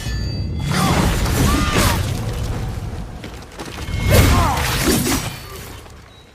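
Loud sword-combat sound effects: two long crashing surges, the first about a second in and the louder about four seconds in, with short squeals rising and falling over them, fading away near the end.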